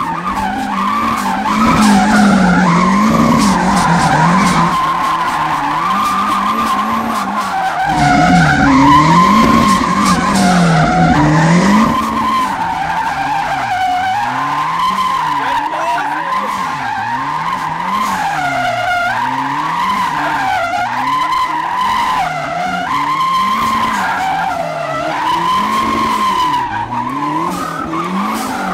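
Turbocharged Toyota 3T-C four-cylinder in a Lotus 7-style kit car, revved up and down over and over while doing donuts, its pitch rising and falling every second or two. The rear tyres squeal and skid on the tarmac throughout.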